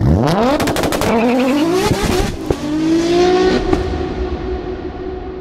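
Car engine revving hard, its pitch sweeping up in quick surges with a few sharp cracks between them, then holding one note and fading away.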